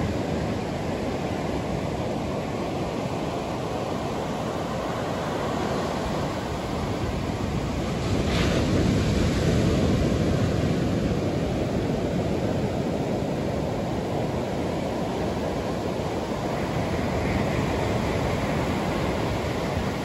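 Ocean surf breaking and washing up a sandy beach in a steady hiss, with wind noise on the microphone; the surf swells louder about eight seconds in.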